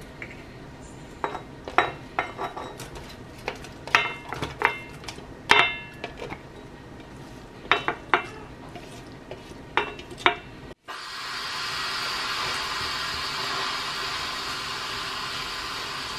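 Irregular knocks and clinks of a utensil against a black cast iron pot as sliced onion and kimchi go in, some with a short metallic ring. About two-thirds of the way through, after a sudden break, a steady sizzle of the kimchi and onion frying in oil.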